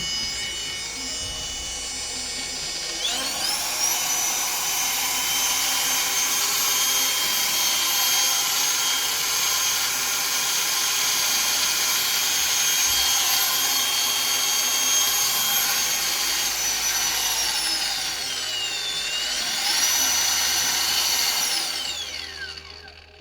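Makita DGA511 cordless brushless angle grinder running: a steady high motor whine that rises to a higher speed about three seconds in, dips in pitch and recovers near the end, then winds down to a stop.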